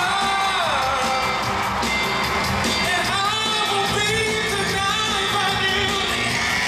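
Live pop song in an arena: a male lead singer's vocal with sliding, ornamented runs over a full band with electric guitar, bass and drums, heard from the audience with the hall's echo.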